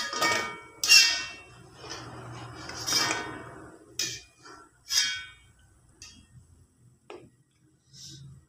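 A metal slotted spoon knocking and scraping against a metal wok while fried prawn fritters are scooped out of the oil. There are about five sharp ringing clanks in the first five seconds, with a stretch of scraping between them.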